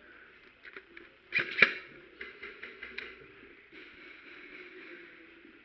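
Sharp clicks and knocks of an airsoft gun firing: a loud pair about a second and a half in, then a quick run of shots at about five a second.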